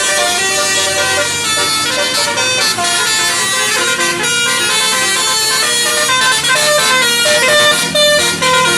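A bus's telolet basuri musical air horn playing a tune: a loud, continuous run of horn notes stepping quickly from pitch to pitch, with several notes sounding together.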